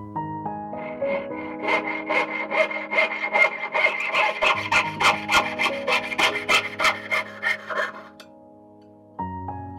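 Jeweler's saw cutting a gold brass rod on a bench pin, a steady back-and-forth of about three strokes a second that starts about a second in and stops near the end.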